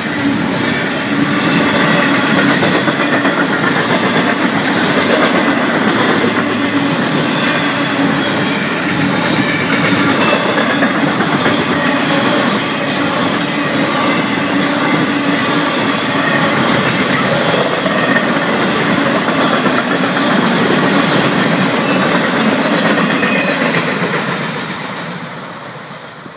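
Florida East Coast Railway intermodal freight train's double-stack and container flatcars rolling past close by: a steady, loud noise of steel wheels on rail that fades out near the end.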